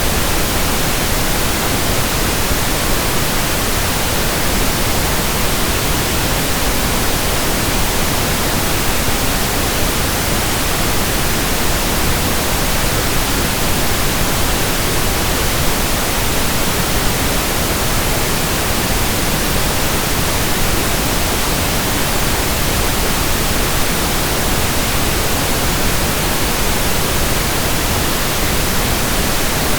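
Steady pink noise: an even, unbroken hiss spread across all pitches, unchanging throughout.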